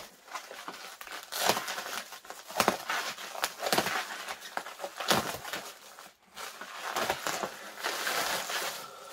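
Plastic protective wrapping crinkling and crackling in irregular bursts as it is handled and cut away with scissors, with a brief lull about six seconds in.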